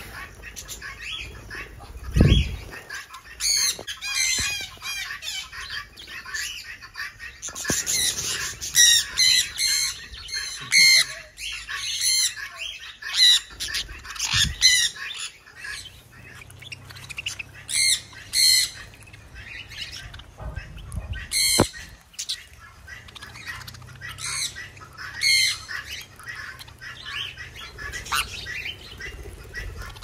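Sun conures screeching in repeated bouts of loud, harsh, wavering calls, over quieter chirping and wing flutters from the small parrots around them. There is a dull thump about two seconds in and another near the middle.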